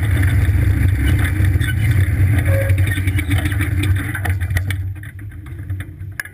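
Go-kart engine running at low speed, then dying away over the last couple of seconds as the kart stops, with a few light knocks near the end.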